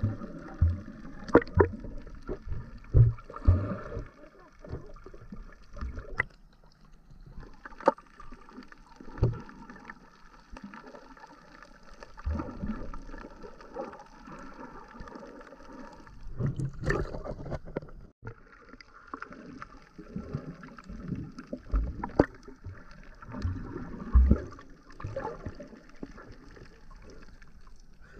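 Muffled underwater sound picked up by a GoPro Hero 7 in its waterproof housing: a steady hum with irregular low bumps and knocks as the camera and swimmers move through the water.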